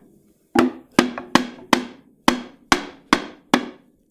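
Wooden mallet tapping a white oak table carcass down onto its joints: about eight sharp wooden knocks, two or three a second, starting after a brief pause.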